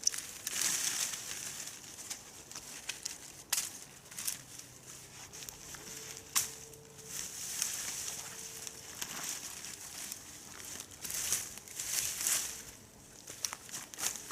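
Rustling and crunching of dry leaves and twigs in repeated swishes, with scattered sharp crackles.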